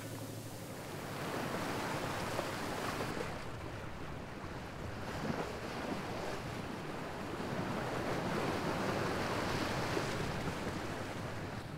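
Sea water rushing and splashing along the hull of a sailing yacht under way, with wind buffeting the microphone; the sound swells and eases every few seconds.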